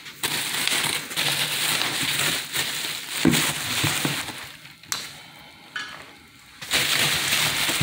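Bubble wrap and foam packing crinkling and rustling as a wrapped part is handled in its cardboard box, dropping away briefly a little past the middle before resuming.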